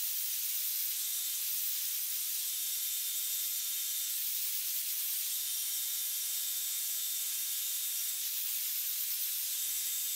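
Steady, even hiss of a belt grinder running, with no low end and no change in level.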